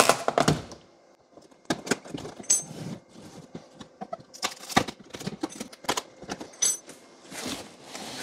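Plywood shipping crate being worked apart by hand: a quick run of sharp clicks at the start, then scattered wooden knocks and rattles with two short high squeaks. Near the end comes a scrape as the wooden upper section is lifted off the pallet.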